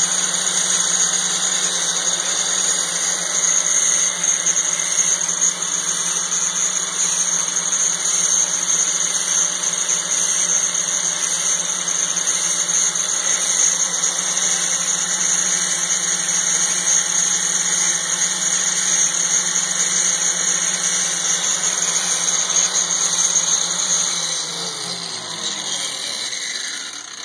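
DeWalt angle grinder running with a steady high whine as it surface-grinds the face of a hardened steel workpiece turning in a mini lathe's chuck, over the hum of the lathe's electric motor. Near the end both wind down, falling in pitch and fading.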